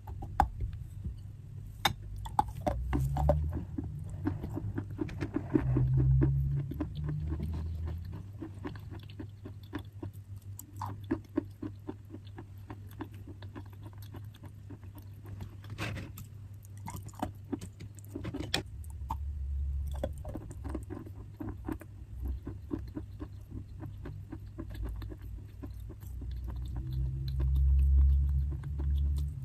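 Close-miked crunching and chewing of chalk: a long, irregular run of sharp crackles and snaps, with soft low thuds here and there.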